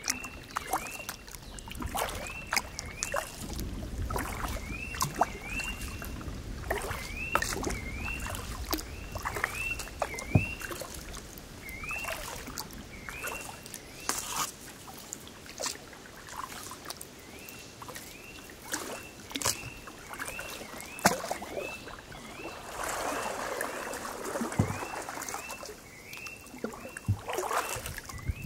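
Kayak paddling on calm water: paddle strokes with splashes, drips and small knocks against the hull. A short upward-sliding call repeats throughout, often twice in quick succession, from an animal in the surrounding trees.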